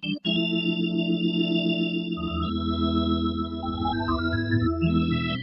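Korg Pa700 arranger keyboard playing one of its factory organ sounds, recorded straight from the keyboard without EQ: held chords, a bass note joining about two seconds in, and a short rising run of notes near the end.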